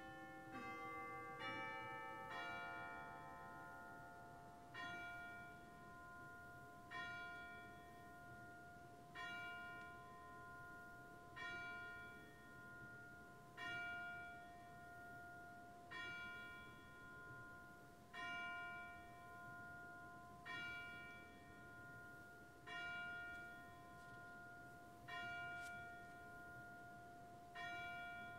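Church bell chime: a few notes of a chime tune, then a single bell tolling slowly, about one stroke every two seconds, each stroke ringing on until the next.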